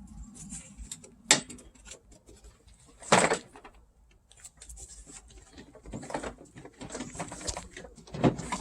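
Hard plastic clicking and scraping as the headlight assembly and bumper trim are worked loose by hand. There is a sharp snap about a second in, a louder crackle around three seconds, then a run of smaller clicks and rustles near the end.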